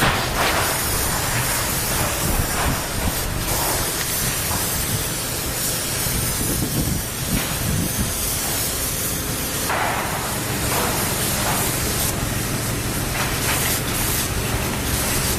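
Hose-fed spray gun hissing steadily as it sprays liquid waterproofing membrane onto a flat roof, with a steady low hum underneath.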